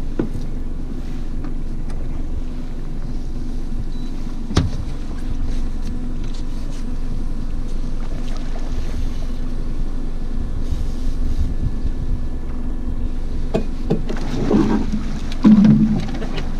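Small outboard motor running steadily, with wind and water noise. There is a sharp knock about four and a half seconds in, and a few knocks and thuds near the end.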